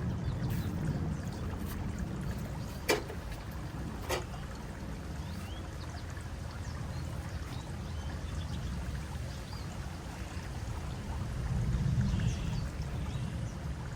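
Steady low rumbling noise with two sharp clicks, about three and four seconds in, and faint high chirps scattered through it.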